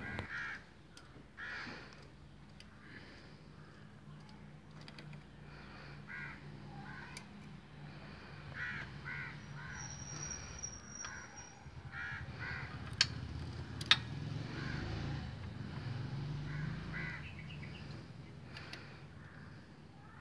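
Crows cawing repeatedly, short separate calls spread throughout, over a faint low hum. Two sharp clicks about a second apart come a little past the middle and are the loudest sounds.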